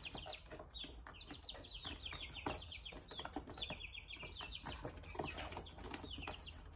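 A brood of three-week-old Golden Comet chicks peeping continuously, a steady stream of short high chirps, with light ticks of beaks pecking at a plastic trough feeder.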